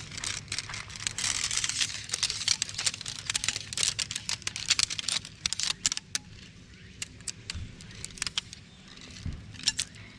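Light clinking and rustling with many sharp clicks, densest in the first half, over a steady low hum.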